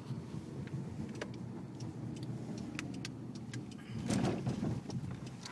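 Low, steady rumble inside a car, with scattered light clicks and a brief louder rush about four seconds in.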